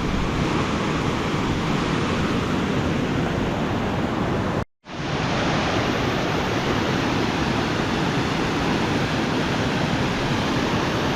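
Steady loud rush of a mountain creek tumbling down a rocky canyon streambed, with a brief total dropout about halfway through before the rushing resumes.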